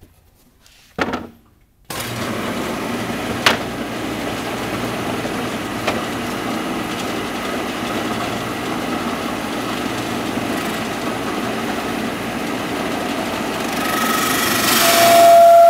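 Grizzly drum sander starting abruptly about two seconds in, after a short knock, then running steadily as a board is fed through on its conveyor. Near the end the sound grows louder and a steady high tone comes in.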